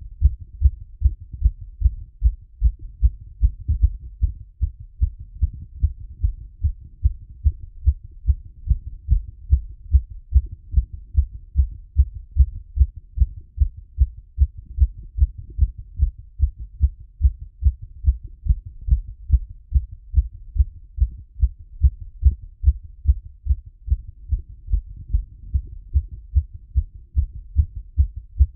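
A human heartbeat heard through a stethoscope after a workout: a steady, even run of low thumps.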